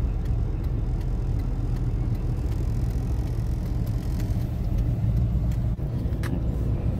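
Steady low rumble of a car's engine and tyres heard from inside the cabin as it is driven slowly, with a few faint ticks.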